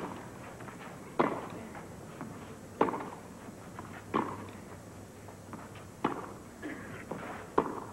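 Tennis ball struck back and forth by rackets in a baseline rally on clay, five sharp hits about a second and a half apart, each with a short ring, over a faint hum of crowd noise.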